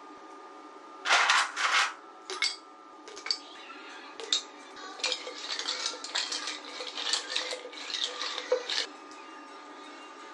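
Dishes and utensils clinking and clattering in irregular handling, with two louder rustling-scraping bursts about a second in.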